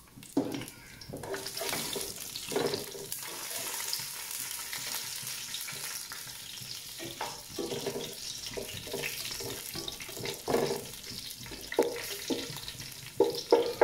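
Whole spices, green chillies and fried onions sizzling in hot ghee in a non-stick pot, while a silicone spatula stirs them, scraping across the pan in repeated strokes.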